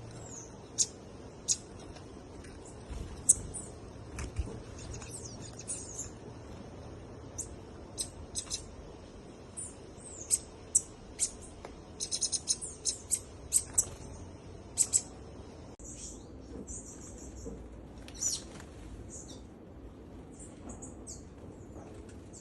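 Small birds chirping: many short, high chirps scattered throughout, with a quick run of chirps about twelve seconds in, over a steady low background noise.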